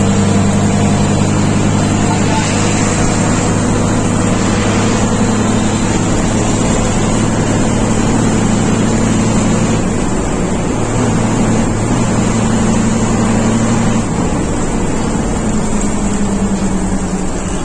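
Engine of a long-distance coach bus running steadily at highway speed, heard from inside the cabin as a low hum under road noise.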